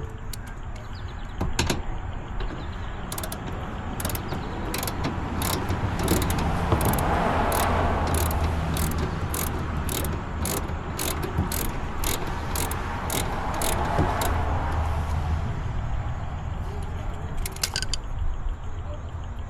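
Hand ratchet wrench loosening a bumper bolt: a regular run of sharp clicks, about two a second, that tails off near the end.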